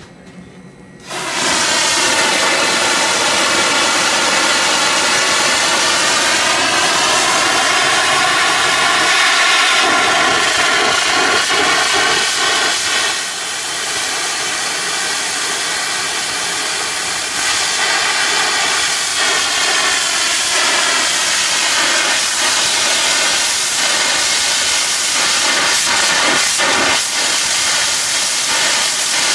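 Steam from a homemade gasification boiler blasting out of a hand-held discharge pipe. It starts suddenly about a second in as a loud hiss laced with whistling tones that bend in pitch. It eases a little partway through, then picks up again.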